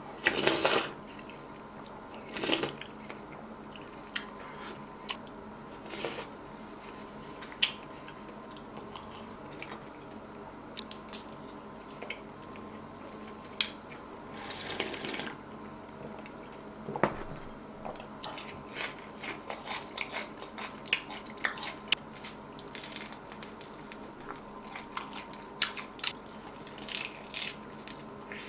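Close-miked eating sounds: slurps of pho broth from a spoon at the start and again about halfway through. Toward the end comes a fast run of crisp crunching and chewing as a fried spring roll is bitten and eaten.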